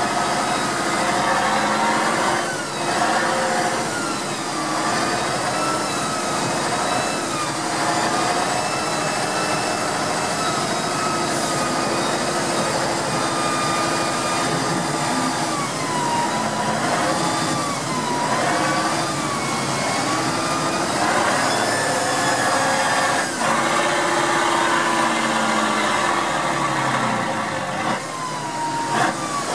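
Tatra 813's air-cooled V12 diesel engine running as the truck drives. The revs rise and fall several times as the driver works the throttle.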